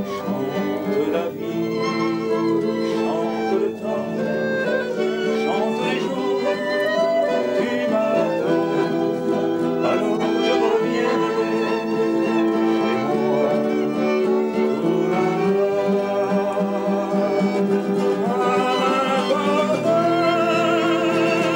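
Acoustic guitar and violin playing a serenade tune, with a man's singing voice, sung with vibrato, coming in near the end.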